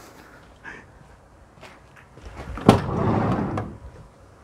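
A Hyundai Starex van's sliding side door unlatching with a sharp click and rolling along its track for about a second.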